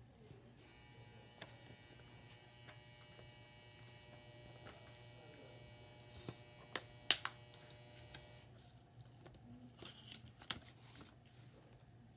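Faint steady electrical hum with a thin high whine over it; the whine stops about two-thirds of the way through. A few light clicks and taps, the sharpest a little past the middle and near the end.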